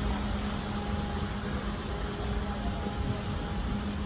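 Steady low rumbling background noise with a faint constant hum through it.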